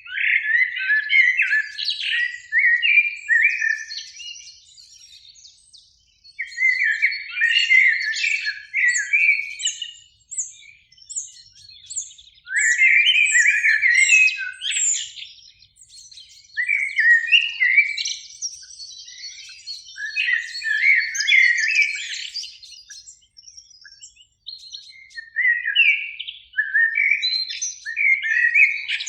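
Common blackbird singing: about six fluty, warbled phrases, each a few seconds long and running up into higher twittering notes, with short pauses between them.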